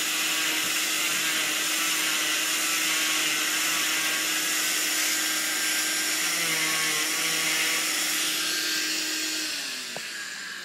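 Electric oscillating cast saw cutting through a fiberglass arm cast: a steady motor whine over hiss, which winds down and stops near the end.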